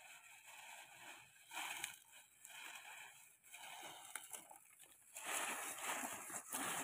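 Hands packing crumbly soil and dry leaf litter into a thin plastic bag: irregular rustling of the plastic and crunching of dry leaves and soil, louder about five seconds in.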